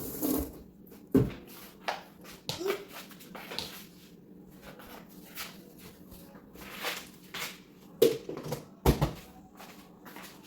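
Irregular light knocks, clicks and clatter of items and containers being handled and put away in a fridge. There is a sharper knock about a second in and two more near the end.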